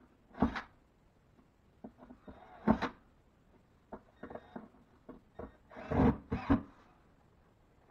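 Cordless drill driving screws through metal square corner bead into ceiling drywall: several short bursts of the drill, the loudest about half a second in, near three seconds and a pair around six seconds, with small clicks between.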